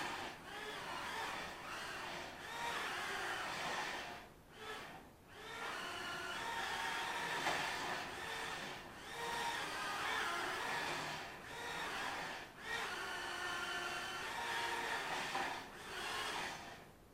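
Eachine E010 Tiny Whoop's small brushed motors and propellers whining, the pitch wandering up and down with the throttle and dropping away briefly several times. The craft is running as a hovercraft with a salad-bowl hull, skimming over a tiled floor. The motors stop near the end.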